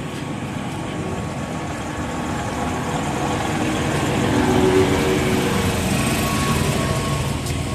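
Passenger train running close by, a steady rumble and rail noise that swells to its loudest a little past halfway and then eases off.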